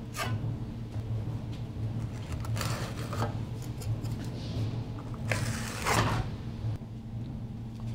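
A trowel scraping sealing adhesive across a metal upstand, in three strokes: a short one at the start, a longer one midway and the loudest near the end, over a steady low hum.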